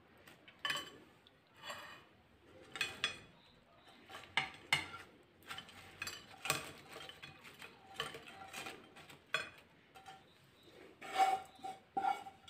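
A dark frying pan knocks and scrapes against a white ceramic plate as potato wedges are slid out onto it. The clinks come at irregular intervals, with the loudest knocks and a short ringing from the plate near the end.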